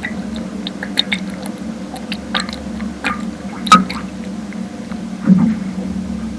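Underwater sound picked up by a homemade piezo hydrophone with a preamplifier: irregular clicks and pops over a steady low hum, with a louder low thud about five seconds in.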